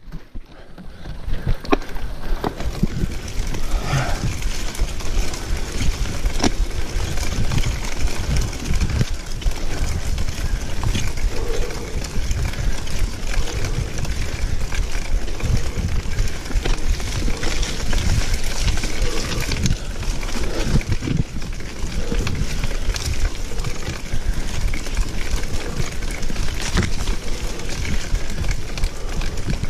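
Specialized Epic Comp full-suspension mountain bike ridden fast over a forest dirt trail: tyres rolling on dirt, with frequent short rattles and knocks from the bike over bumps. A heavy rumble of wind on the microphone runs underneath. The sound fades in over the first couple of seconds.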